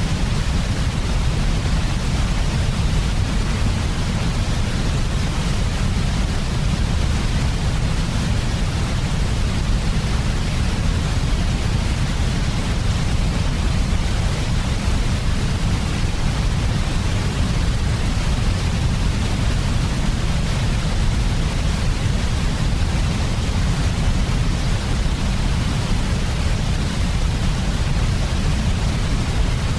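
Steady generated sleep noise of the white-noise kind: an even, unchanging hiss with a heavier low rumble beneath it.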